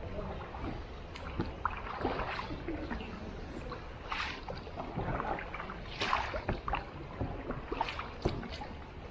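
Paddles dipping and splashing in water beside a small boat, in irregular short splashes, the strongest about four, six and eight seconds in, over a steady low rumble.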